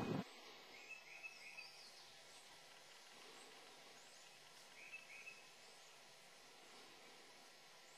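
Quiet woodland ambience with faint, short bird chirps in small groups, about a second in and again around five seconds in; a gust of wind noise on the microphone cuts off right at the start.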